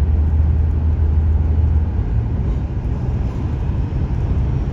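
Strong wind buffeting the microphone: a loud, deep, steady rumble with a hiss above it, a little more uneven from about two seconds in.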